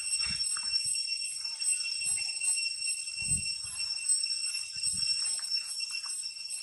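Steady, high-pitched insect drone, one unbroken whine with a faint crackle beneath it, and a few soft low thumps, the clearest about three seconds in.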